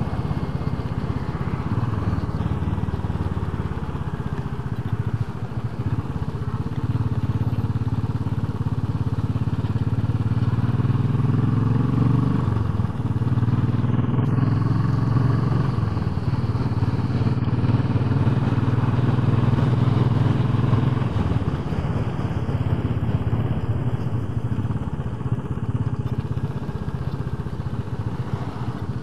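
Royal Enfield Bullet 500's single-cylinder four-stroke engine running under way. The engine note rises about a third of the way in, holds, then drops back about two-thirds of the way through.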